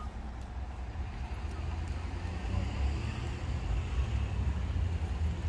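A car passing, its hiss swelling about halfway through, over a steady low rumble.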